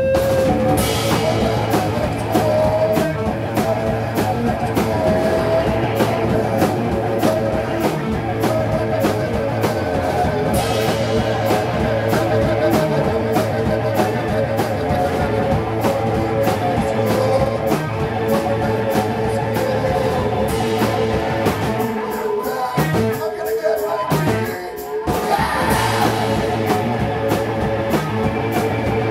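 Live rock band playing loud, with drum kit, guitar and keyboards. The drums and low end drop out for a few seconds near the end, then the full band comes back in.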